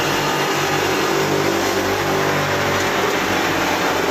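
Electric buffing machine running, its spinning polishing wheel pressed against a stainless steel plate: a steady motor hum under an even rushing noise.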